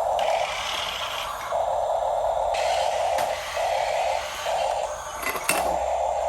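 Electric motors and gears of a radio-controlled model machine whirring in short on-off spurts, with a sharp click about five and a half seconds in.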